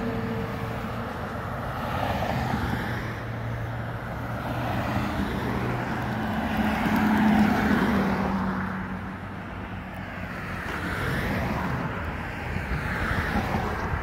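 Engine noise of passing traffic: a steady drone that swells to its loudest about seven seconds in and then fades.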